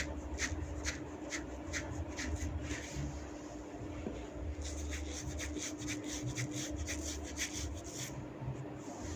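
Hands massaging a person's head, rubbing through the hair in short scratchy strokes at about two or three a second. After a brief pause about three seconds in, the strokes come faster for a few seconds.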